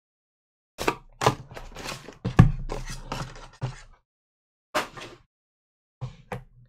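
Cardboard trading-card boxes knocked and slid on a tabletop: a quick run of knocks and scrapes over the first few seconds, the loudest about two and a half seconds in, then a single knock and two more near the end.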